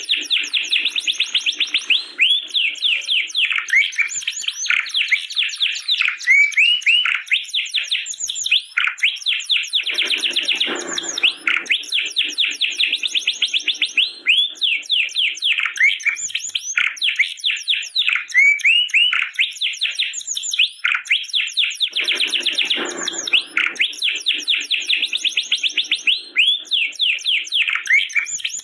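Domestic canary singing continuously in long, fast trills of rapidly repeated notes, the song shifting from one trill to the next, with a lower, rougher phrase twice, around ten and twenty-two seconds in.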